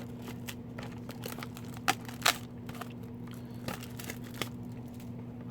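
Hobby box of trading cards being handled and opened: scattered crinkles and light clicks of cardboard and wrapping, with two sharper clicks about two seconds in, over a steady low hum.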